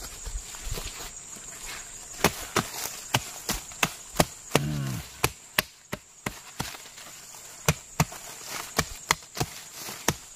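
Small hand tool chopping into soil and plant stems: irregular sharp strikes, roughly two a second, over a steady high insect drone.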